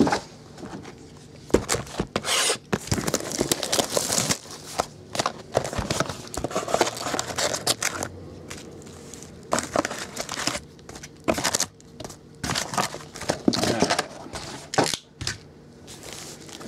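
Foil Topps Chrome card packs crinkling and rustling as they are handled and stacked, in irregular bursts with sharp clicks as packs are set down.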